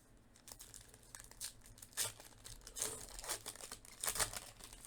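Trading card pack wrappers and cards being handled: a run of short crinkling and tearing rustles, the loudest cluster near the end.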